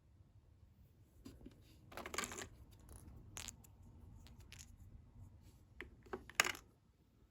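Handling noises from refilling a prize vending machine: a string of sharp clicks and short rustles, with a longer rustle about two seconds in and a quick run of clicks ending in a louder snap near the end.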